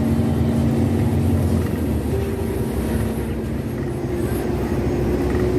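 Diesel bus engine running as the bus drives along, a steady low drone with tyre and road noise; its hum changes pitch about two seconds in.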